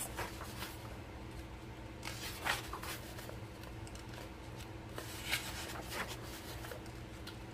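Pages of a paperback coloring book being turned by hand: a few soft paper rustles and swishes, one turn after another, over a faint steady hum.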